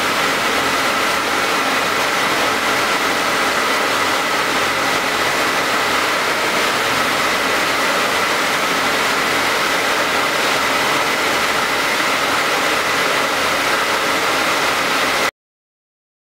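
Industrial sewing machine motors running with a steady hum and hiss, a few faint steady whines on top; it cuts off suddenly near the end.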